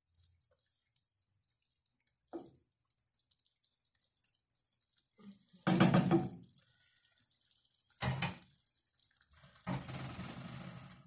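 Sliced mushrooms sizzling and bubbling in their juices in a frying pan, with a steady hiss. A wooden spatula stirs them, with a few louder knocks and scrapes on the pan; the loudest comes about six seconds in.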